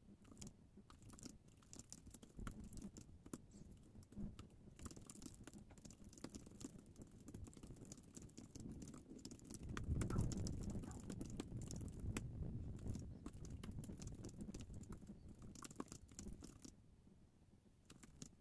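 Typing on a compact low-profile keyboard: a quick, irregular run of soft key clicks, which stops near the end. A brief low rumble rises about ten seconds in.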